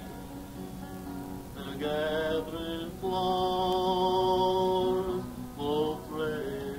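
Live folk music recorded on cassette: a slow melody of long held notes. The longest note starts about three seconds in and is held for about two seconds, followed by a few quicker notes near the end.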